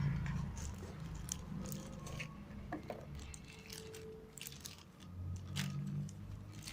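Handling noise from unboxing a small device: scattered sharp clicks, taps and crunchy rustles of packaging and a hard casing being handled, over a low steady hum.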